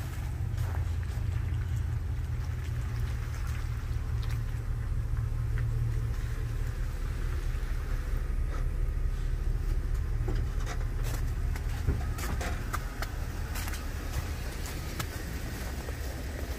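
Pickup truck's engine idling with a steady low rumble, with irregular footsteps scuffing on packed snow and slush.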